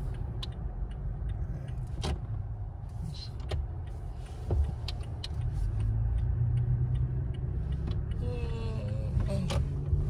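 Steady low rumble of a Toyota's engine and tyres, heard from inside the cabin while driving. It grows a little louder about halfway through, with a few faint clicks and knocks.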